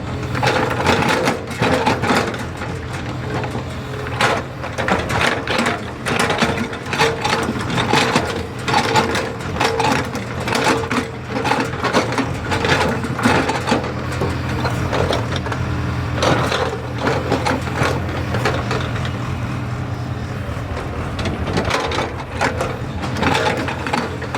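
JCB excavator's diesel engine running steadily under load, with irregular clattering and crunching from the machine at work throughout.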